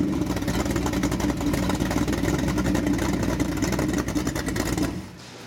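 A carbureted 408 cubic-inch small-block Ford Windsor V8 stroker, built on a 351W, idling steadily on an engine test stand at about 1,000 rpm, with a fast, even run of firing pulses. Near the end it is switched off and cuts out suddenly.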